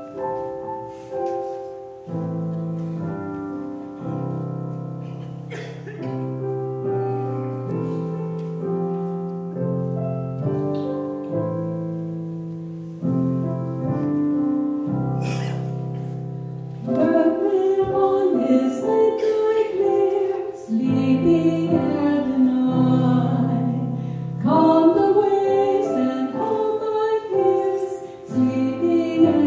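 Piano playing slow, sustained chords. About halfway through, singing voices join over the piano and the music grows louder.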